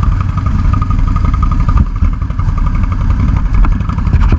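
ATV engine idling steadily, a continuous low run of rapid firing pulses.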